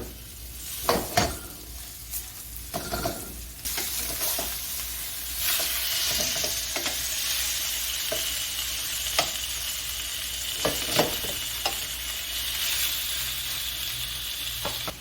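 Flour-dredged chicken frying in hot oil in a pan: a steady sizzle that grows louder about five seconds in, with a few sharp clicks and knocks scattered through it.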